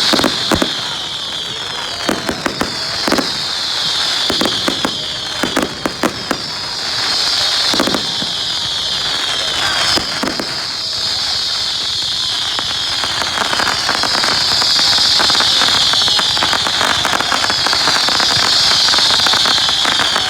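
Fireworks going off: scattered sharp bangs and crackling. Over them runs a high screeching whistle that keeps falling in pitch, about every three seconds.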